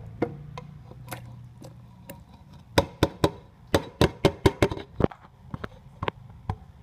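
Knife cutting a banana into pieces over a steel blender jar: a run of sharp knocks and clicks, about a dozen close together in the middle.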